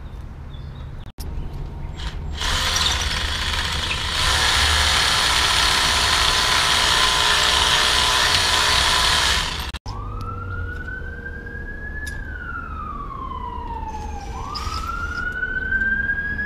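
A power drill runs steadily for about seven seconds, drilling up into the stucco soffit, and cuts off abruptly. Then an emergency vehicle siren wails, its pitch rising and falling slowly.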